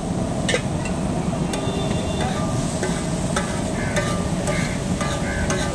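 Chopped onion, tomato and spice mix sizzling and frying on a large flat steel griddle (tawa), with a metal spatula scraping and clinking against the hot iron at irregular moments.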